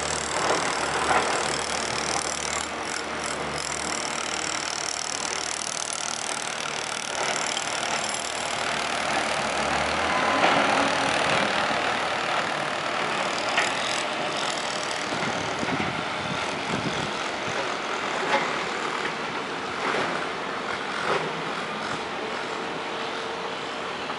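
Steady outdoor street noise with vehicle traffic running and a few short knocks; a low rumble drops away about ten seconds in.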